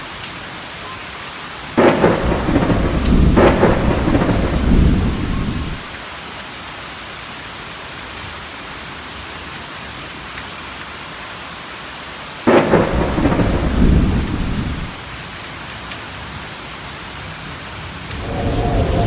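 Steady rain with two thunderclaps. The first breaks sharply about two seconds in, cracks again a second and a half later and rumbles on for about four seconds; the second breaks about twelve seconds in and rumbles for about two seconds.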